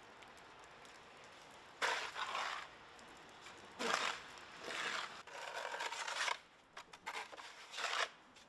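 Snow shovel scraping across pavement and pushing wet snow, about six separate strokes of half a second to a second each.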